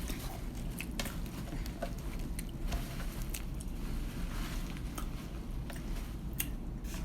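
Close-up eating sounds: someone chewing KFC fried chicken, with scattered small crunches and wet mouth clicks over a steady low hum.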